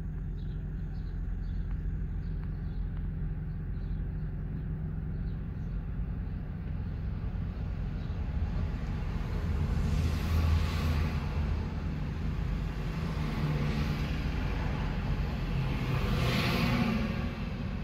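Car traffic heard from inside a car: a steady low engine and road rumble, with passing vehicles swelling about ten seconds in and again near the end, the second as a vehicle passes close alongside.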